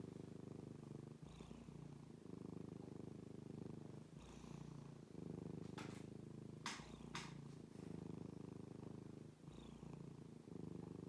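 Domestic cat purring continuously close up, a contented purr whose rumble changes with each breath in and out, roughly every second. Three sharp clicks near the middle.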